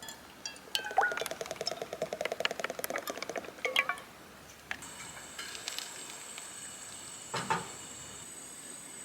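Light clinks and a fast rattle of small hard objects knocking together for about three seconds, then a steady, faint, high-pitched whine.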